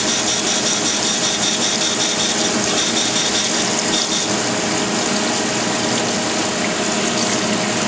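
Amada Wasino Meister V3 CNC surface grinder running, its abrasive wheel grinding a steel punch: a steady grinding hiss with a high whine, with coolant splashing at the wheel.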